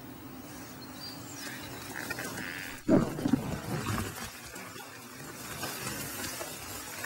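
Tall grass rustling against a camcorder carried through it, with a loud low thump and a brief rumble of handling or wind on the microphone about three seconds in.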